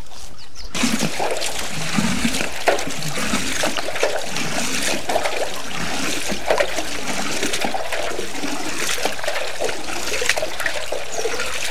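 Water running and splashing steadily, with a gurgling sound that starts abruptly about a second in.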